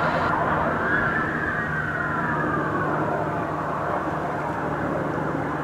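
Several police car sirens wailing at once, their slow rising and falling tones overlapping, over a steady low hum.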